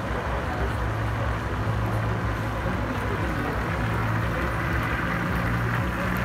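Ice resurfacing machine driving over the rink, its engine giving a steady low hum under an even hiss.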